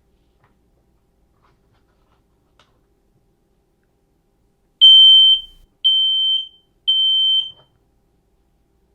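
Kidde i9070 battery-powered ionization smoke alarm sounding on test: three loud, high-pitched beeps about a second apart, the temporal-three alarm pattern, starting about five seconds in.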